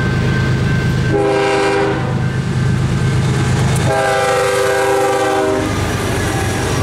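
Air horn of a BNSF GE ES44DC diesel locomotive leading a freight train, sounding two chord blasts for a level crossing: a short one about a second in and a longer one around four seconds in. The steady rumble of the passing diesel locomotives runs underneath.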